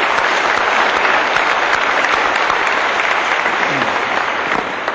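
Audience applauding steadily, starting to die away near the end.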